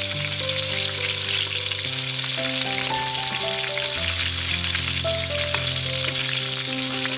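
Battered baby corn deep-frying in hot oil in a wok: a steady, even sizzle. Background music of slow held notes plays under it.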